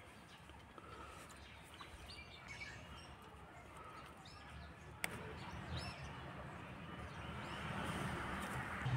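Birds chirping faintly in the background, with a single sharp click about five seconds in and a low rustling that grows louder near the end.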